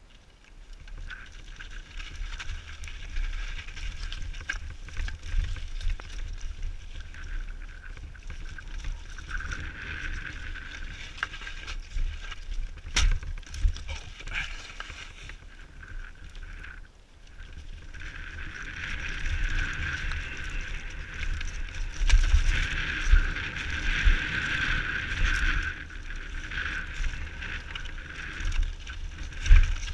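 Mountain bike descending a dirt and rock trail, heard from a helmet-mounted camera: wind rushing over the microphone, tyres on dirt and the bike rattling, with sharp knocks over rocks. It grows louder and busier about two-thirds of the way through as the speed picks up.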